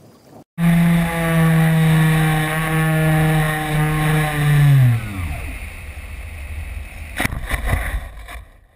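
Onboard sound of a model airplane's motor and propeller running at a steady pitch. About four seconds in it is throttled back and the pitch falls away. Near the end the plane lands in grass with rustling and several bumps.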